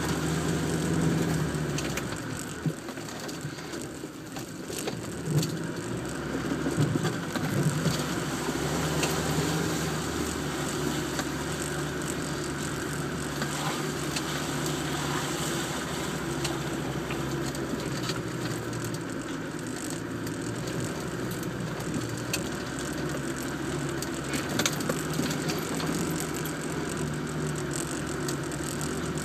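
Land Rover Defender engine running at low revs as it crawls over rutted mud tracks, heard from inside the cab. Irregular clicks and knocks from the body and fittings jolting over the bumps come and go, busiest in the first several seconds.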